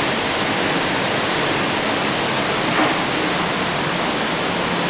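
Steady, loud rush of flowing water inside a tunnel, an even hiss with no break.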